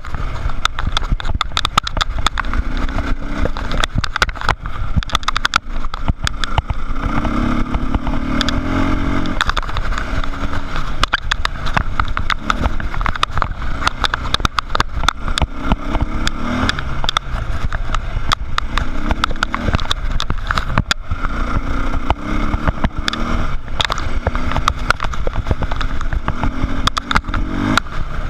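Dirt bike engine running hard on a rough trail, its note swelling every few seconds as the throttle opens, under heavy wind buffeting on the mounted camera and a constant clatter of knocks from the bumpy ground.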